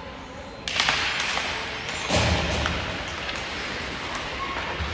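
Ice hockey play on the rink: a sudden sharp knock a little under a second in, then scraping and clatter of sticks, puck and skates on the ice, with a heavier thump about two seconds in.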